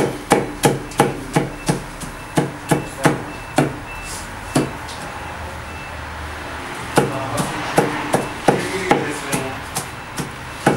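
Steel meat cleaver chopping roasted mutton on flatbread against a wooden board, quick even blows about three a second. The chopping pauses for a couple of seconds midway, then starts again.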